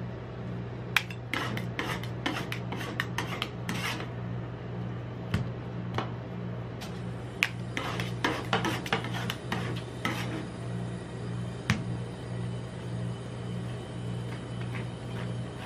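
Metal spatulas chopping and scraping ice cream mixture on a frozen steel plate: quick runs of clicks and scrapes, bunched in two spells about a second and eight seconds in, over a steady low hum.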